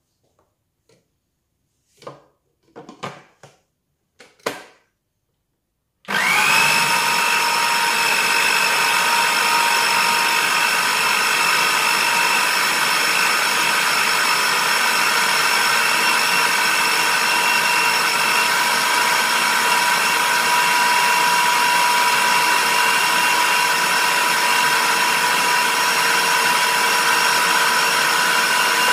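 A few short knocks, then about six seconds in a Kenwood food processor's motor starts and runs steadily with a high whine, chopping a full bowl of chillies into sambal paste.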